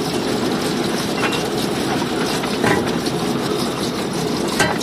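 Rotary borewell drilling rig's engine running steadily, with three sharp knocks from the drill pipe: about a second in, near the middle, and a louder one near the end.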